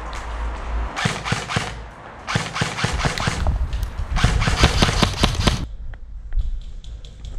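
Airsoft electric gun (AEG) firing three rapid full-auto bursts of clicking shots, each lasting about a second, the last one the longest.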